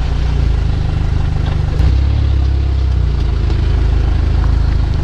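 Volkswagen Golf Mk6 R's turbocharged 2.0-litre four-cylinder with an APR Stage 2+ tune, heard at the exhaust as a steady low drone while the car rolls along at low speed, with a brief swell a little under two seconds in.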